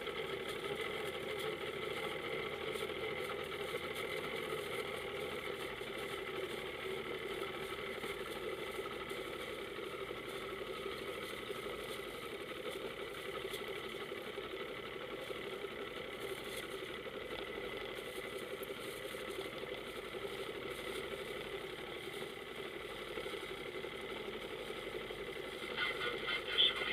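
Motorboat engine running steadily at low speed, a constant drone with no change in pitch.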